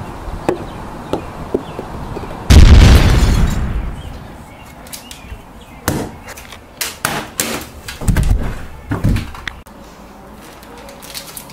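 A sudden loud crash about two and a half seconds in, dying away over a second or so, followed a few seconds later by a string of sharp knocks and heavier thuds.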